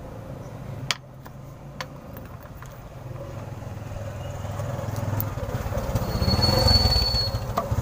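A motor vehicle's engine rumbling and growing louder, loudest about six to seven seconds in, with a thin high whine near the peak. A couple of sharp metallic clicks come about one and two seconds in.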